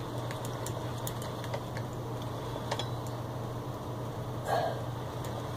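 Light, irregular clicks and taps of fingers handling thread and a metal bobbin on a vintage Singer sewing machine's bobbin winder while the thread is wrapped and tightened, over a steady low hum.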